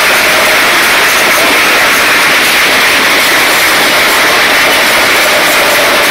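Football crowd in the stand cheering and applauding, a loud continuous roar of many voices and hand-clapping.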